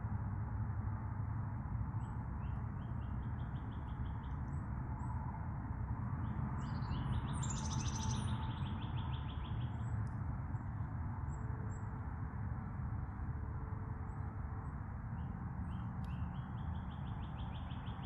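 Steady rain falling, with a songbird singing rapid high trills three times: briefly about two seconds in, a longer one in the middle, and another near the end.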